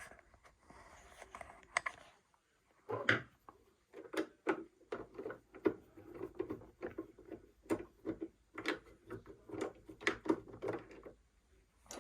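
Screwdriver undoing the single bolt that holds a Pfaff sewing machine's thread-tension assembly: a run of small irregular metal clicks and scrapes, starting about three seconds in and stopping shortly before the end.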